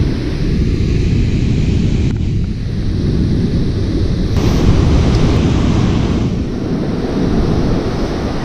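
Strong wind buffeting the microphone in a heavy, continuous low rumble, with surf washing onto the beach behind it.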